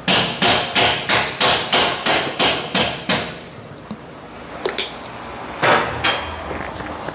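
Hammer striking metal at a car's rear suspension: a steady run of about ten blows, about three a second, each ringing briefly, then after a pause a few more blows near the end.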